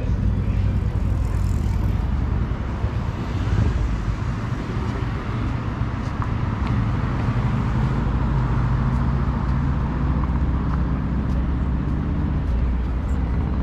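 Ocean surf washing steadily, with a constant low rumble underneath.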